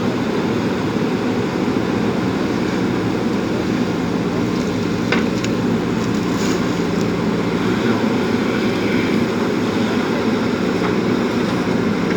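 JCB backhoe loader's diesel engine running steadily, with a couple of short clicks or knocks about five and six and a half seconds in.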